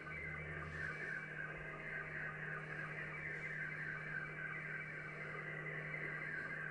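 Slow-scan television (SSTV) picture signal received by a shortwave transceiver in upper sideband: a continuous stream of warbling, rapidly shifting audio tones over band noise as an image decodes line by line. The signal is a little noisy. A steady low hum runs underneath.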